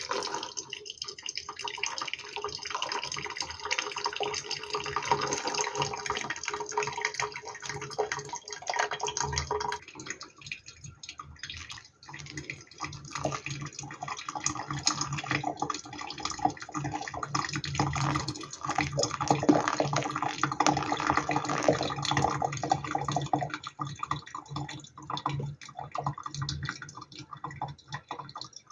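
Water poured in a stream, twice, with a short break about ten seconds in, typical of pouring water through a pour-over coffee dripper.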